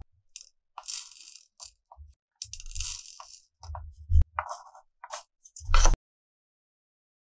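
Hands handling craft materials and tools at a work surface: scattered rustles, crackles and small clicks, with two sharp knocks, the louder one about six seconds in, after which the sound cuts off suddenly.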